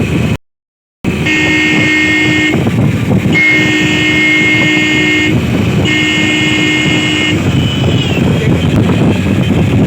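Motorcycle 'popo' horn on a Hero Splendor honked three times, each blast a steady tone lasting one to two seconds, over the steady rumble of the moving bike and wind. Near the start the sound cuts out entirely for about half a second.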